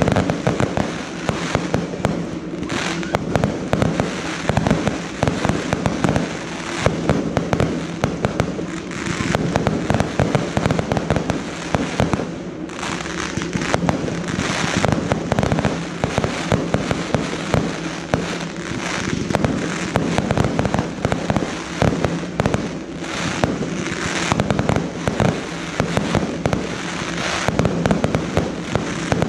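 Fireworks barrage: aerial shells bursting in quick succession, a dense run of bangs and pops with hardly a break, easing briefly about twelve seconds in.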